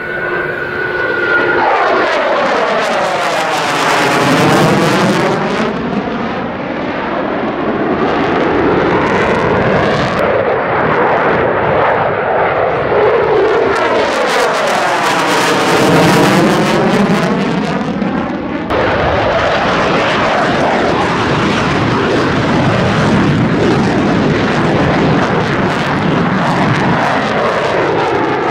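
JASDF F-15J Eagle's twin F100 turbofan engines running loud through a low display pass. Twice, about 4 s and 15 s in, the roar sweeps down and back up in pitch as the jet passes close overhead.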